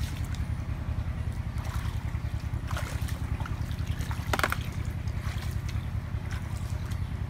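Bare feet wading and sloshing through shallow floodwater, with a few short splashes, the loudest a little past halfway, over a steady low rumble.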